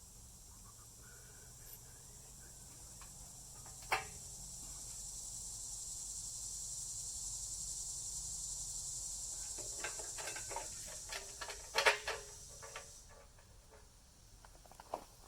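Several sharp metallic clicks and knocks, clustered in the second half, from steel pipe fittings being handled and fitted together. Under them a steady high-pitched hiss swells and then stops suddenly near the end.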